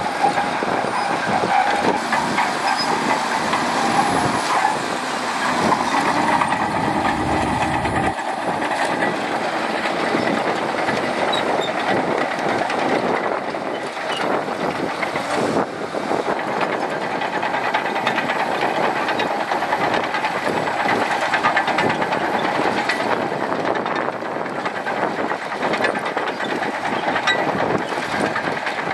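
Shantui DH17C2 bulldozer working, its diesel engine running steadily under a dense, rapid clatter of steel tracks.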